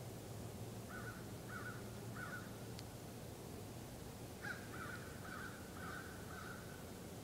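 A bird calling with short repeated notes about two a second: three about a second in, then a run of five from about four and a half seconds. A steady background hiss runs underneath.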